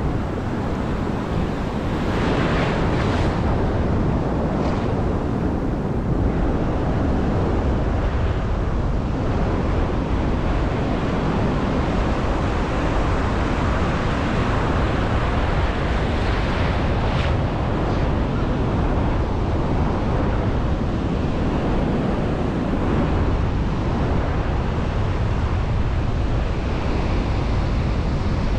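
Pacific surf washing and breaking around the wader, under steady wind buffeting on the microphone.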